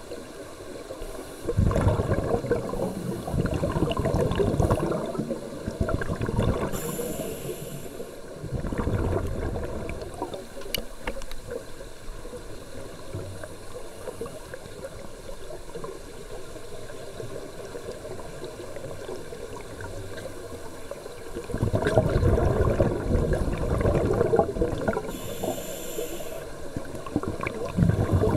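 Scuba regulator breathing heard underwater: long rushing swells of exhaled bubbles, and twice a short, high hiss of inhalation.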